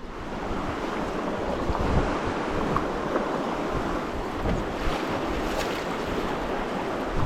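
Steady rush of moving river water, with wind buffeting the microphone and rumbling in the lows. The noise starts abruptly and then holds level.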